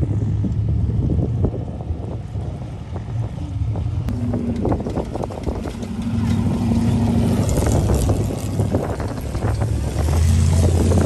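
Off-road sand car engines running and driving past on the dunes, the drone rising and falling in pitch, with wind buffeting the microphone.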